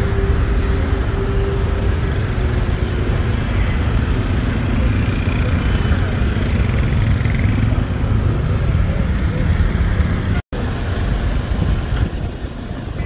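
Dense road traffic of motorbikes and cars, a steady loud rumble, broken by a sudden brief dropout about ten and a half seconds in.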